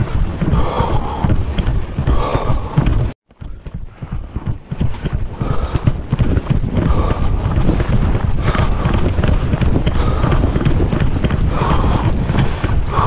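Running footfalls on asphalt, a rapid rhythm of knocks with the moving camera jolting at each stride, over a constant low rumble. The sound cuts out suddenly for about half a second about three seconds in.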